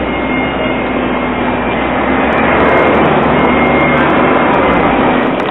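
CAF Urbos 3 tram running away along the street amid city street traffic: a steady rushing noise with a low hum, growing a little louder about halfway through.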